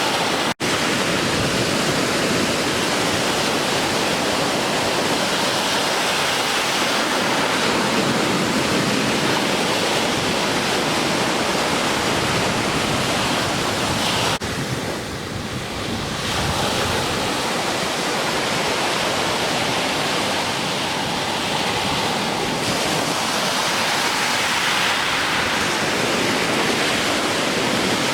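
Ocean surf breaking, a steady dense rush of waves with no pause, cutting out very briefly about half a second in.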